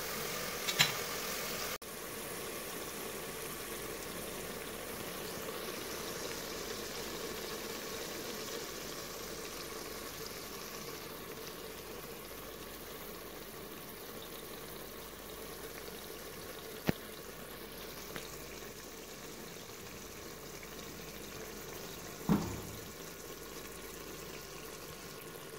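Mutton and radish curry simmering in an open aluminium pressure cooker on a gas stove: a steady bubbling hiss. A few sharp knocks break in, the loudest about 22 seconds in.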